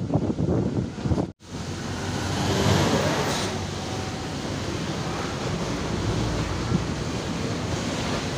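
Wind rushing over the microphone with road noise from a moving vehicle: a steady rushing noise that swells briefly about three seconds in. The sound drops out for an instant a little over a second in.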